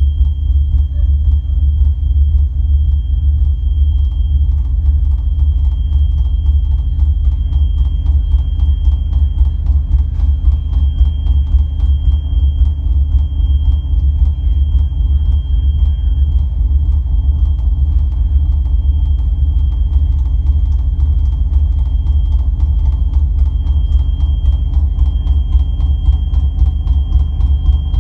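Ambient electronic music played live: a loud, deep bass drone with a fast, even pulse running through it and a thin, steady high tone held above it.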